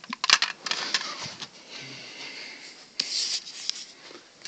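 Handling noise: a cluster of clicks and knocks in the first second, then rustling, and another short scrape about three seconds in.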